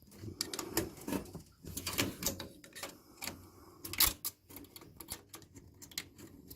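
Irregular clicks, taps and knocks of metal and plastic computer parts being handled and pried apart by hand, as a desktop computer is taken apart for scrap.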